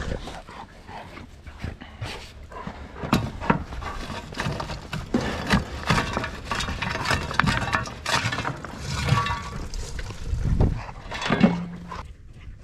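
Dogs moving about and making small vocal noises, with irregular scraping and knocking as frozen dog poop is scooped up.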